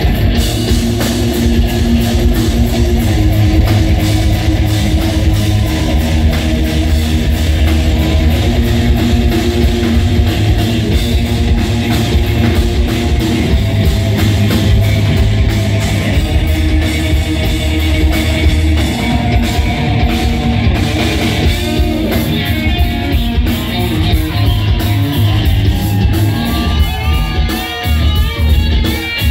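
Live rock band playing loud and continuously, with a drum kit and electric guitars, heard from the audience in the club. The sound thins out a little in the last few seconds, leaving sliding electric guitar notes over the band.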